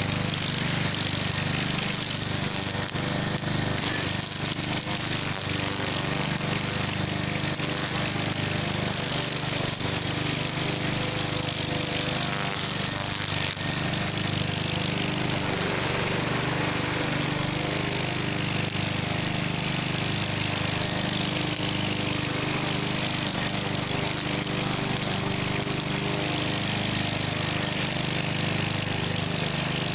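Cub Cadet walk-behind string trimmer's small engine running steadily under load while it cuts through tall weeds.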